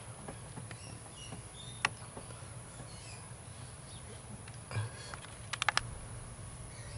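Light clicks and taps of plastic dashboard parts and tools being handled during reassembly. There is a single sharp click about two seconds in, a soft thump near five seconds, and a quick run of four or five clicks just after it, over a low steady hum.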